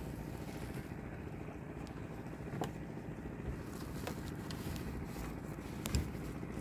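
Steady low rumble of wind on the microphone out over open water, with a couple of faint clicks.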